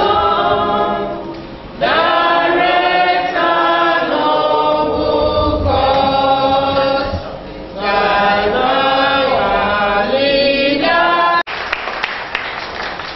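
A group of voices singing together without instruments, in long held notes with short breaths between phrases. About eleven seconds in, the singing cuts off abruptly, giving way to room noise and handclaps.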